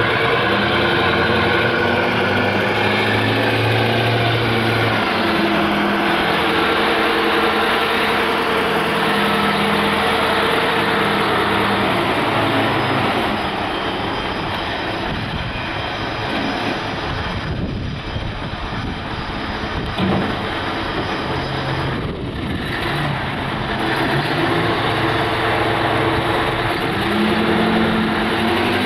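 Caterpillar 988B wheel loader's 3408 V8 diesel engine running under throttle, its note rising and falling as the machine moves and works.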